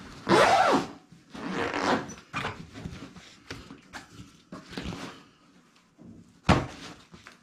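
Zipper on a packed fabric carry bag being pulled closed in a few long strokes, followed by handling rustles and small knocks, then one sharp thump near the end.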